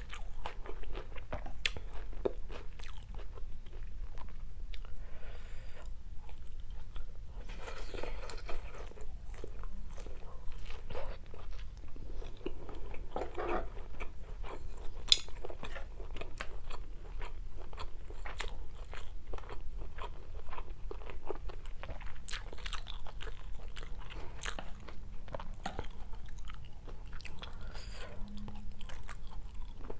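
Close-miked chewing of a mouthful of stir-fried rice vermicelli with fried tofu: a steady run of small wet mouth clicks and crunches, picked up by a clip-on microphone.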